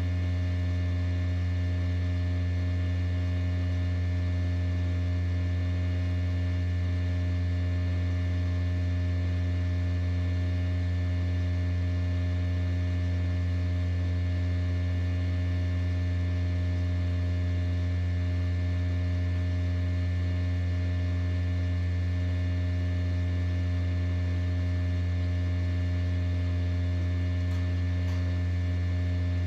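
Incubator fan motor humming steadily: a strong low drone with a ladder of fainter steady tones above it, unchanging throughout.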